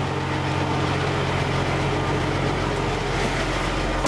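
Semi truck's diesel engine idling close by, a steady noise with a low hum. At the very end a cab door shuts with a thud and the engine sound turns muffled.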